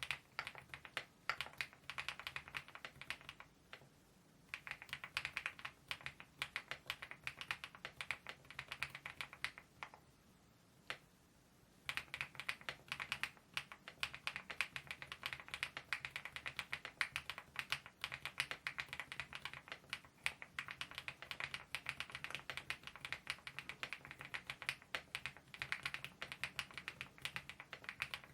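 Typing on a mechanical keyboard fitted with KeyTok Godzilla dye-sublimated keycaps: a fast, steady run of keystrokes, breaking off briefly about four seconds in and again for about two seconds near the middle.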